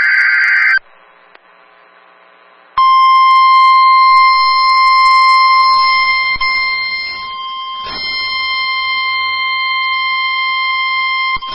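NOAA Weather Radio Required Weekly Test signal. The last burst of the EAS SAME header's warbling digital data ends about a second in. After a short pause the 1050 Hz warning alarm tone sounds, a single steady high tone held for about nine seconds.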